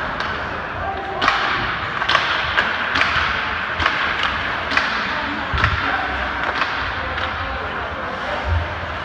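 Ice hockey play: sharp knocks and clacks of sticks, puck and boards at irregular intervals, several a few seconds apart, over a steady background of crowd and arena noise with some voices.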